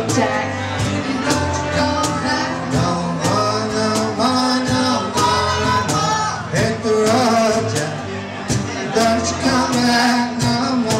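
A live band playing a song: voices singing over keyboard and a steady drum beat.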